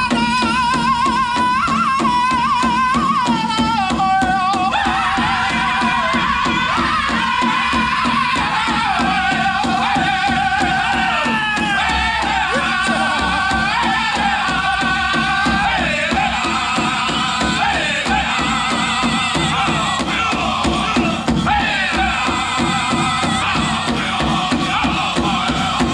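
Powwow drum group playing a chicken dance song: high-pitched group singing in falling phrases over a steady, even drumbeat. The singing grows fuller about five seconds in as more voices join.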